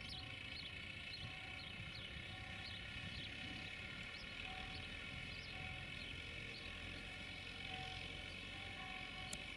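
A CFR 060-DA (LDE2100) diesel-electric locomotive runs steadily as it approaches slowly, its Sulzer diesel engine giving a low rumble under a steady whine. Small birds chirp now and then.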